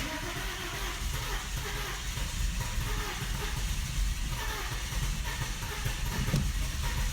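Car engine being cranked by the starter, turning over steadily without catching. It is a no-start after a valve cover gasket change, which the owner suspects is a bad fuel pump.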